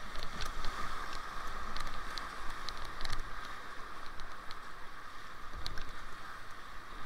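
Creek whitewater rushing steadily around a kayak running a rapid, with short sharp splashes and knocks from paddle strokes and spray scattered through.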